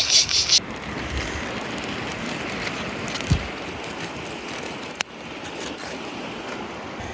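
Mountain stream running steadily beside a wood fire, with a quick run of sharp crackles at the start and single pops from the burning wood, one low thump about three seconds in and a sharp snap about five seconds in.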